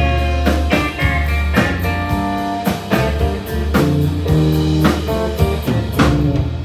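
Live country band playing an instrumental passage with no vocals: acoustic and electric guitars and fiddle over a steady drum beat.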